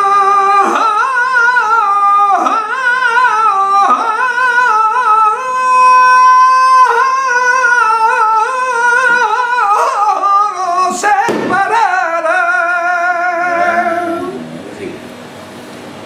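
Male flamenco singer's voice singing colombianas: one long sung line with wavering, ornamented pitch and a long held note about six seconds in. The voice stops about fourteen seconds in, leaving quieter room sound.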